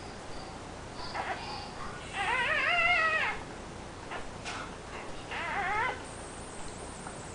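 Newborn puppy crying: a long, wavering high squeal about two seconds in and a shorter, quieter one about five seconds in, with faint squeaks just before.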